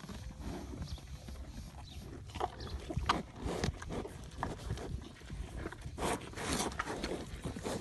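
Cow eating ripe mangoes from a plastic tub: irregular wet crunches and clicks of chewing and mouthing the fruit, with a longer noisy burst about six seconds in.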